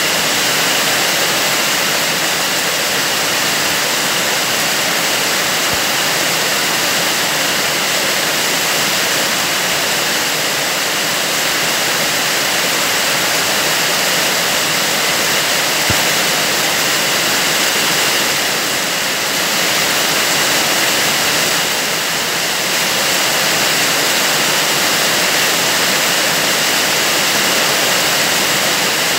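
Heavy rain pouring steadily onto bare earth, puddles and foliage, a dense even hiss.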